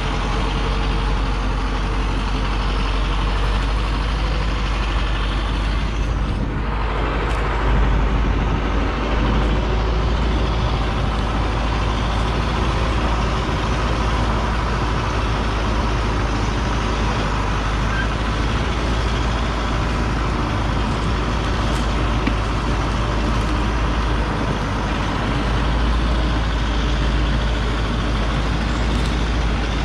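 Hoa Mai log truck's engine running steadily, the truck carrying on with its rear differential smashed.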